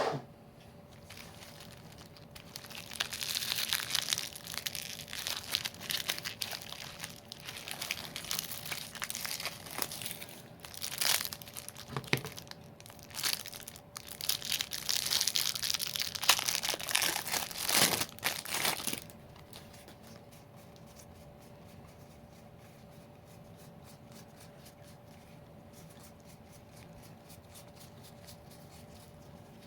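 Plastic packaging crinkling and tearing in irregular bursts as the fat pack's wrapping is handled and ripped open; the rustling stops about two-thirds of the way in.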